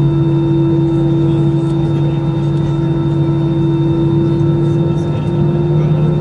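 Airbus A320-214's CFM56 jet engines heard inside the cabin, running with a steady low hum at low thrust as the aircraft lines up on the runway. The pitch begins to creep up slightly near the end.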